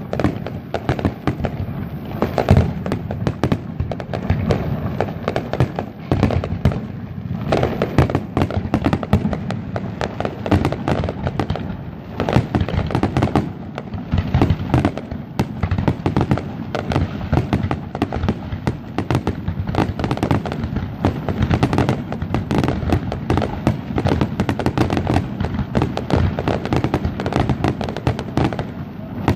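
Fireworks display: aerial shells exploding one after another in a dense, unbroken run of bangs that overlap.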